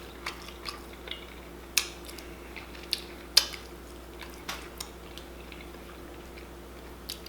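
Close-miked eating of chicken wings: scattered short clicks and smacks of chewing and handling the food, about nine in all, over a faint steady hum.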